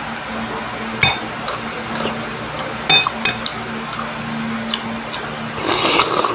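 Metal spoon clinking against a ceramic bowl while scooping rice, several sharp clinks with a short ring, the loudest about a second and three seconds in. A steady low hum runs underneath.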